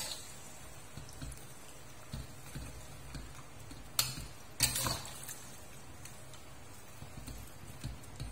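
Metal spatula stirring a thick sauce in a steel wok, with a few sharp clinks against the pan, the loudest about four to five seconds in, over a low steady hum.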